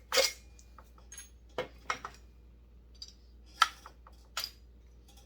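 Small metal parts and tools clinking against a workbench as chainsaw muffler bolts are taken out and set down: about five separate sharp clinks, the loudest a little past halfway.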